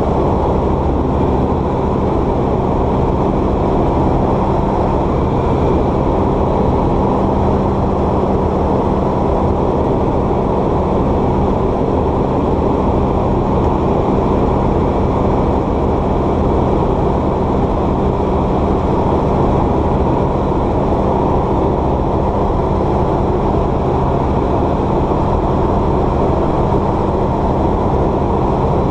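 Light aircraft piston engine and propeller running steadily, heard from inside the cockpit as a loud, unchanging drone.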